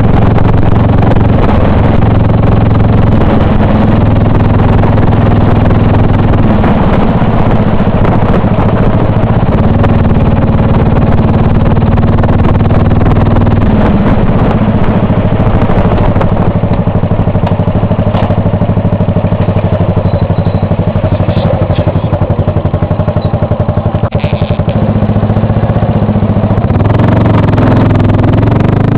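2002 Buell Blast's 500 cc single-cylinder engine running through a large aftermarket exhaust while being ridden, heard close from the rider's helmet. The engine note is loud and shifts several times as the revs change.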